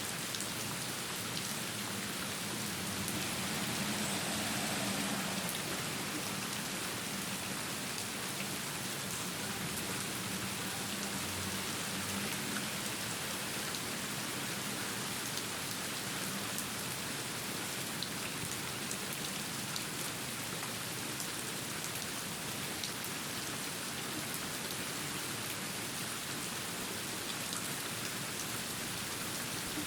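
Steady rain falling, a dense even hiss with scattered single-drop ticks, swelling slightly about four to six seconds in.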